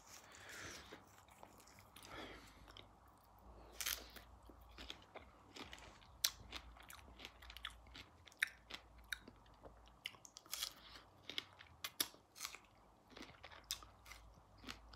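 A person chewing strawberries close to the microphone: faint, irregular wet mouth clicks and smacks.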